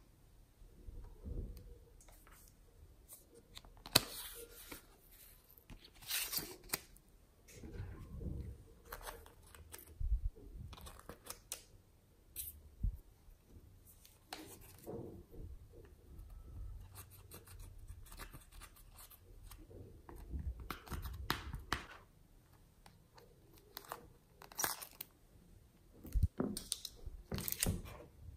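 A plastic stick scraping pressed eyeshadow powder out of the pans of a plastic makeup palette, in irregular short scratching strokes with a few sharp clicks and taps.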